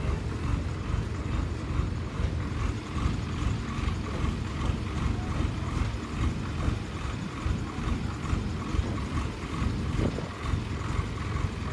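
A mobile crane's engine running steadily, a low rumble with a faint regular pulse, while it holds a load on its sling.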